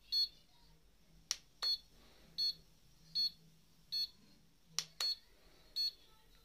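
Handheld mini HIFU face-tightening device beeping as it fires its ultrasound pulses, a short high beep roughly every three-quarters of a second. Two sharp clicks come between the beeps.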